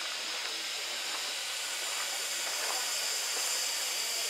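Steady hiss of steam from a standing LMS Ivatt Class 2MT 2-6-0 steam locomotive, No. 46512. It grows a little louder in the second half.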